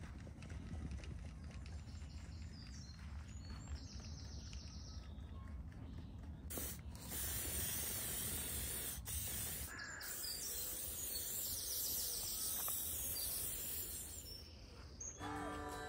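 Aerosol spray can of gloss varnish hissing as it is sprayed, starting about six seconds in and going in long bursts with two short breaks.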